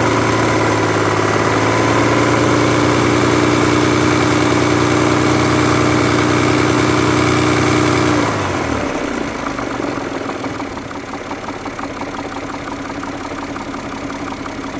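Mazda Millenia's 2.5-litre KL V6 engine held at raised revs, then dropping back to idle about eight seconds in. It idles on with fine regular ticking, the knock the owner is recording.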